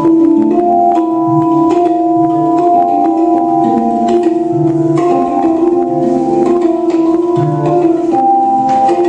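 Music for a dance performance: sustained held notes over slowly changing chords, with light clicks scattered through it.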